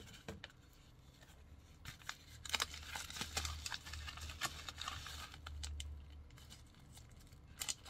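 Plastic packaging crinkling and rustling, with scattered small clicks, as items are unwrapped and a bubble-lined plastic bag is opened.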